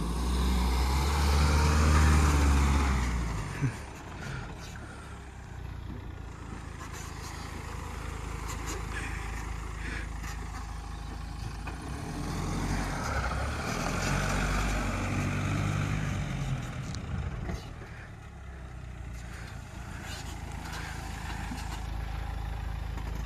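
Mahindra Thar's engine revving as the SUV drives through loose sand in four-wheel drive. It comes in two surges, each a few seconds long and about ten seconds apart, the pitch climbing and then dropping back, with the engine running lower in between.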